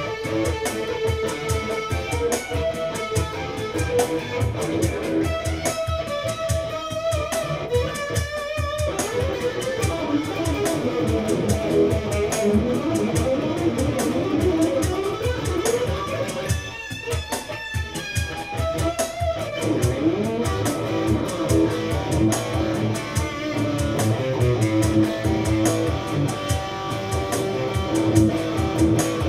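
Electric guitar played through an amplifier on its neck pickup, with a dark but defined tone, improvising lead lines with string bends and slides over a steady beat.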